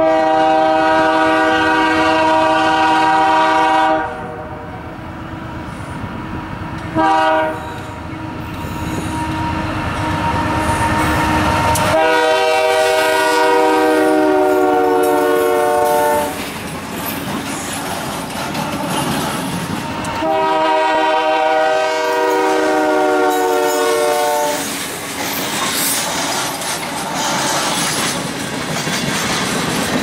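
Diesel freight locomotive's air horn sounding a multi-note chord in long blasts: one at the start, a short one about seven seconds in, and two more long ones around twelve and twenty seconds. Between and after the blasts, the locomotives rumble and the freight cars clatter over the rails as the train passes.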